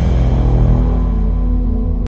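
Intro music: a low sustained chord with a heavy bass drone.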